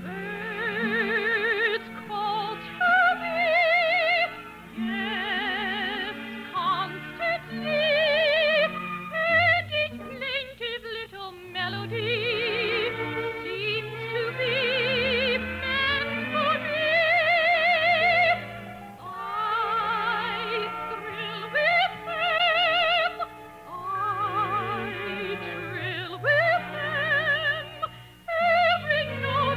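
A soprano sings an operetta song in full operatic style with wide vibrato, over orchestral accompaniment. It is an old radio broadcast recording with the top end cut off, so it sounds muffled.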